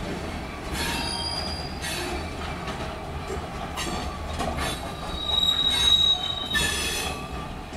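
Freight train of tank cars rolling past with a steady low rumble, its steel wheels squealing against the rails in high-pitched squeals that come and go. The longest and loudest squeal holds for over a second past the middle.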